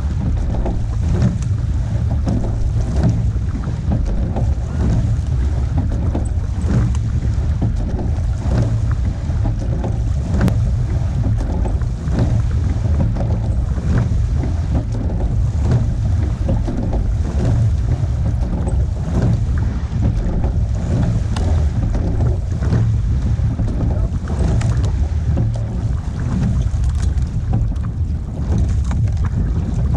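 Wind buffeting a bow-mounted action camera's microphone over water rushing along the hull of a rowing pair, with a recurring knock and splash about every two seconds as the oars work through the strokes.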